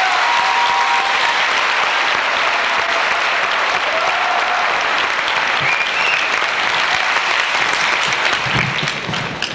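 Large audience applauding loudly, tapering off near the end.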